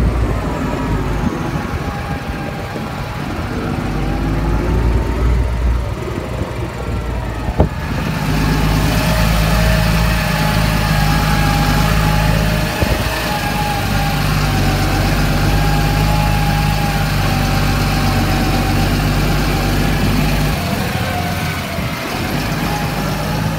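Fendt 930 Vario tractor's diesel engine running steadily, with a wavering whine above the engine note. About eight seconds in, a steady hiss joins it, just after a single sharp click.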